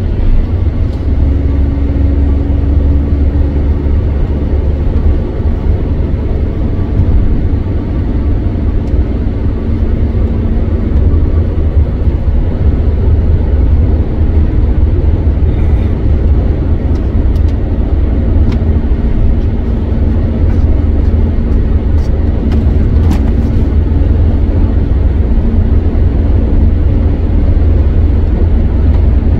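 Steady low rumble of a car travelling at motorway speed on a wet road, heard from inside the cabin: tyre and engine noise with a hiss of spray. A few faint ticks sound about halfway through.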